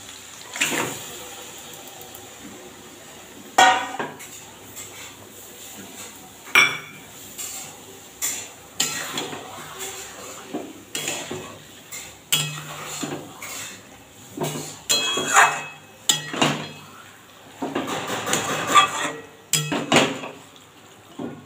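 Metal spatula knocking and scraping against a metal kadai as marinated chicken is stirred into onion masala. The clanks are irregular and come more often in the second half.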